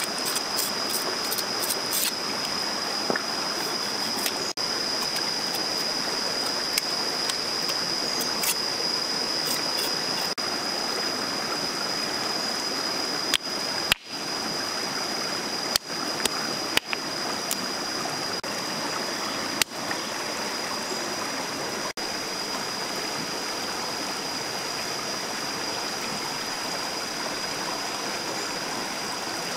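Shallow stream flowing over rocks: a steady rush of water, with a steady high-pitched whine above it. A few sharp knocks of stone on stone come around the middle, as stones are set down to build a fire ring.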